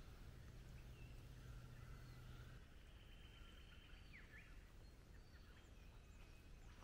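Near silence: faint outdoor ambience with scattered distant bird chirps and whistles, and a faint low hum that stops about two and a half seconds in.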